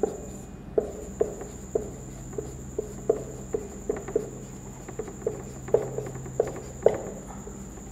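Dry-erase marker writing on a whiteboard: a string of short, irregular taps and squeaks from the pen strokes, about two a second. A faint steady high-pitched tone runs underneath.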